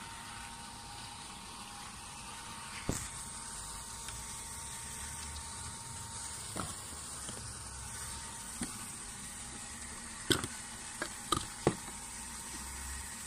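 Light clicks and knocks from handling a beach cart's plastic-hubbed wheels and metal frame as a wheel is fitted onto its axle: a few scattered ones, then a quick run of four near the end, over a steady hiss.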